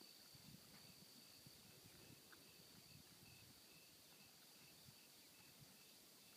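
Near silence with a faint chorus of insects: a steady high drone and a softer chirp repeating a few times a second.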